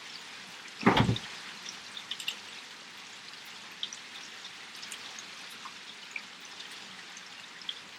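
Steady rain falling, with scattered drips ticking. One short, loud thump about a second in.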